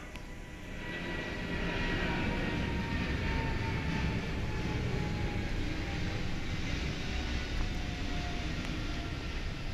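A distant engine rumbling, swelling about a second in and then holding steady, with faint high whines that slowly fall in pitch.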